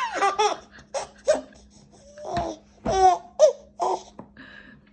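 An eight-month-old baby laughing in a string of short bursts, giggles and belly laughs, set off by pretend sneezes.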